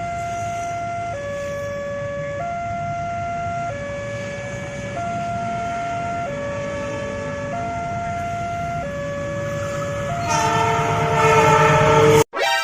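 Two-tone hi-lo siren switching between two pitches about every 1.3 seconds over the low rumble of a running train. About ten seconds in, a louder multi-note train horn joins and then cuts off abruptly just before the end.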